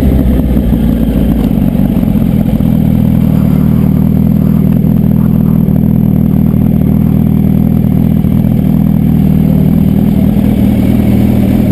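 Yamaha R1's inline-four engine running at low revs as the motorcycle rolls slowly, settling into a steady idle about a second and a half in.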